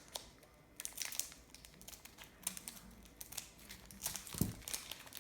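Wrapper of a trading card pack crinkling and rustling in the hands as the pack is opened, in irregular crackles that start about a second in.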